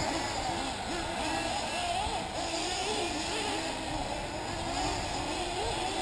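Several 1/8-scale nitro RC buggy engines running on the track, their whine rising and falling in pitch as the cars accelerate and brake.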